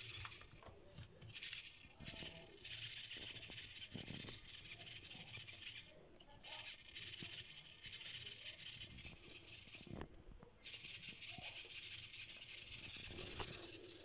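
Corally CS-5226 RC servo jittering: its motor buzzes and chatters in uneven stretches, with short breaks, as it twitches back and forth. The glitching is back with the capacitor pack taken off its power lines.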